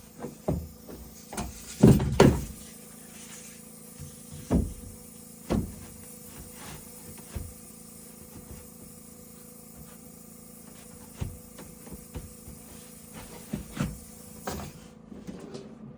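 Carpentry work: irregular wooden knocks and thumps of boards and tools being handled. The loudest come about half a second and two seconds in, with lighter knocks scattered after.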